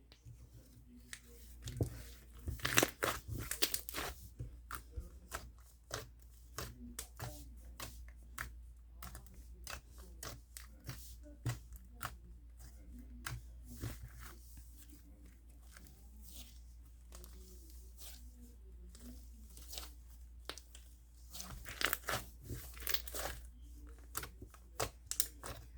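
Slime being squished and stretched by hand, giving irregular sticky crackles, pops and tearing sounds, with denser bursts of popping a couple of seconds in and again near the end.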